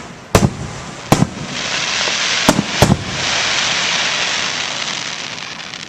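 Fireworks display: four sharp bangs of aerial shells bursting in the first three seconds, with a long loud hiss that swells in the middle and slowly fades.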